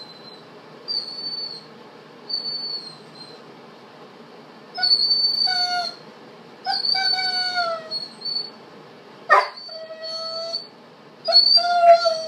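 A dog whining in thin, high squeals, then howling in four drawn-out cries that each sag slightly in pitch, starting about five seconds in. One sharp knock about nine seconds in.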